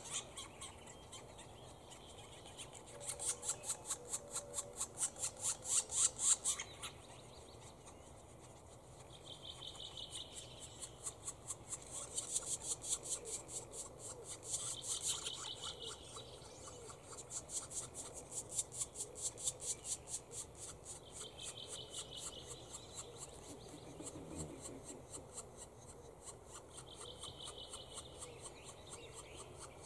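Black woodpecker nestlings begging at the nest hole: short calls repeated rapidly, about three a second, in bouts that swell and fade again and again.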